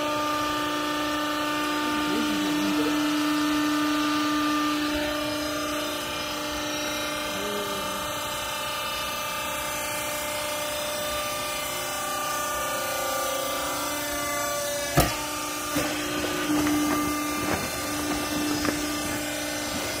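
Hydraulic power unit of a vertical textile-waste baler running with a steady whine. About three-quarters of the way through comes one sharp knock, followed by a few lighter knocks.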